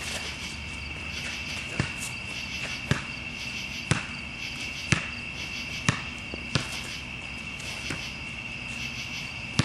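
A basketball being dribbled, bouncing about once a second, over the steady high chirring of crickets.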